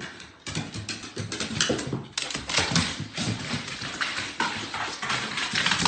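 Irregular knocks and clicks of footsteps and a dog's claws on wooden stairs.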